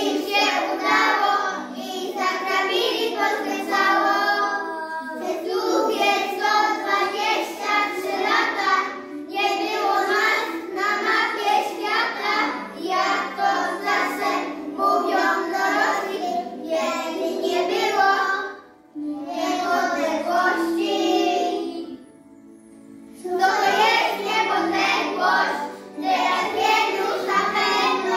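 A group of young children singing a song together in chorus, phrase after phrase, with a short pause about two-thirds of the way through.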